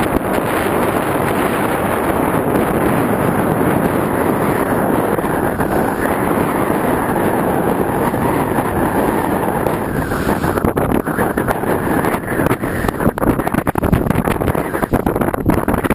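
Wind buffeting the microphone of a GoPro aboard a motor tender, over a steady rush of boat and water noise. About ten seconds in the buffeting turns gusty and choppy.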